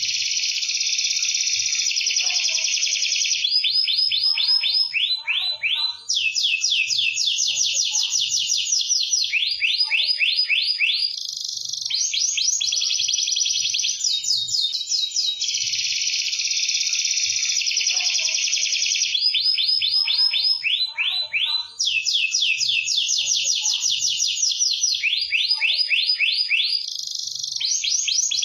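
Domestic canary singing nonstop, with fast trills and rolling, warbling phrases high in pitch. The same sequence of phrases comes round again about every sixteen seconds.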